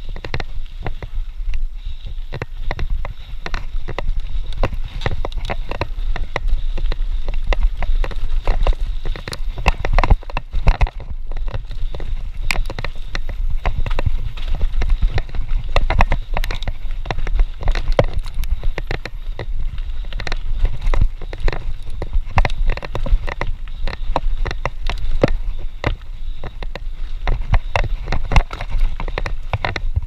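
Mountain bike running down a rough dirt and gravel trail: a constant clatter of short knocks and rattles as the bike jolts over stones, over a steady low wind rumble on the microphone.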